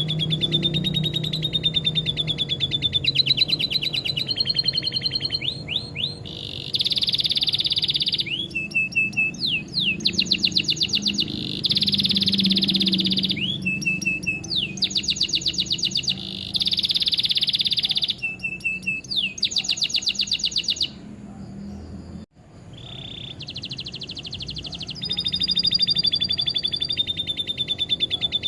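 Domestic canary singing fast, high trills and buzzy rolls in phrases of a second or two, a song filled in with lovebird-like phrases.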